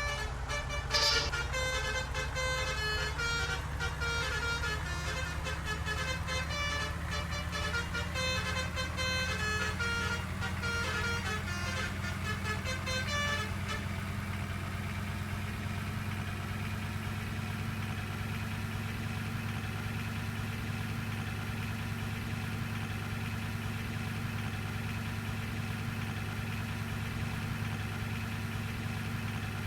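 Bus's multi-note 'basuri' telolet horn playing a quick tune of changing notes, with a brief hiss about a second in; the horn stops about halfway through, leaving the bus engine idling steadily.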